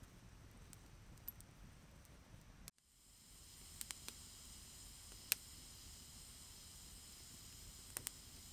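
Small twig campfire crackling faintly, with a few sharp pops over a steady hiss. The sound drops out for a moment about three seconds in.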